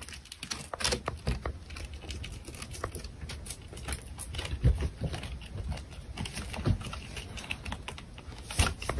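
Irregular small clicks and scratches of a hamster's claws gripping the wall and door frame as it climbs.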